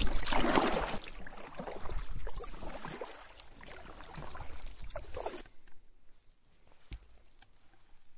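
Paddling an inflatable canoe: paddle splashes and small knocks against the hull. It is loudest in the first second, then uneven, and fades out after about five and a half seconds.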